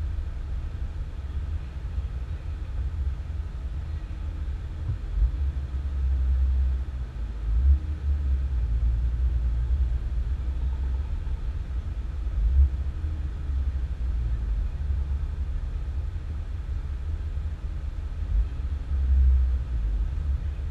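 Low, steady rumble of a vehicle driving slowly, heard from inside the cabin, with a few brief louder jolts along the way.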